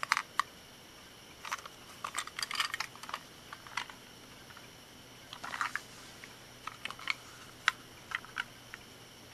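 Plastic Plarail toy train cars clicking and clattering as they are handled, turned over, set down and picked up: scattered sharp clicks in short clusters, the sharpest single click near the end.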